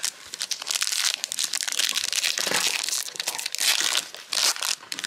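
Foil wrapper of a Panini Prizm trading-card pack crinkling and tearing as it is ripped open by hand, with a continuous crackle that dips briefly near the end.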